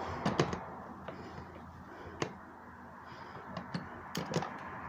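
A handful of sharp plastic clicks and knocks as the pitcher and lid of a Ninja blender are handled and pushed at, the jar not yet locking onto the base.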